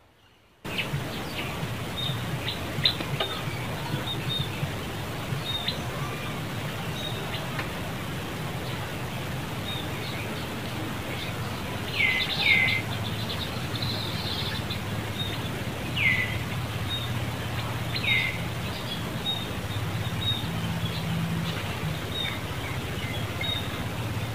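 Forest ambience that starts abruptly after a moment of silence: a steady background hiss with frequent short, high bird chirps. There are also four louder, short calls that fall in pitch, two close together about halfway through and two more a few seconds apart after that.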